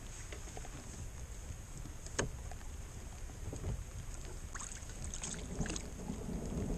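Wind buffeting the microphone and water against a fishing kayak, a steady low rumble. There is one sharp click about two seconds in and a few small clicks near the end.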